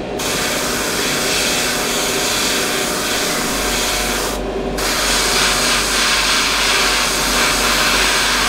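Airbrush hissing as it sprays paint, cutting off briefly at the start and again about four and a half seconds in. A low hum joins about three and a half seconds in.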